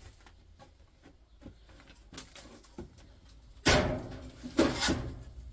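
Faint handling clicks, then a loud metal clatter and a second one about a second later as a stripped steel piece of an electric hob is dropped onto a shred-metal pile.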